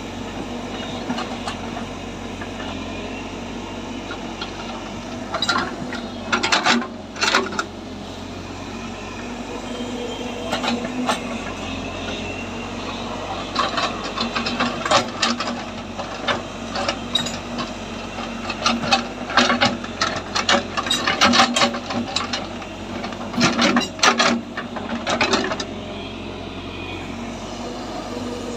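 Heavy earthmoving machine running steadily, with bursts of metallic clanking and scraping from its working parts that come several times and cluster in the second half.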